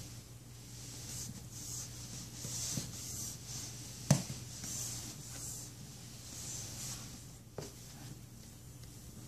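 Soft rubbing and brushing as a baby's hands stroke a cat's fur and its cushioned bed, in short swishes about once a second. A sharp knock comes about four seconds in, and a fainter one later.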